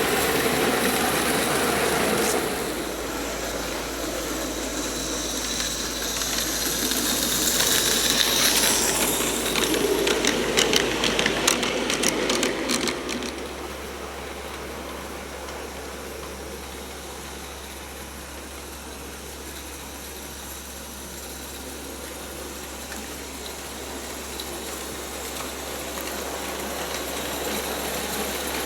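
Roundhouse 16mm-scale live steam locomotive running on a garden railway, growing louder as it comes close with a quick run of clicks about ten to thirteen seconds in, then fading to a quieter steady running sound as it moves away.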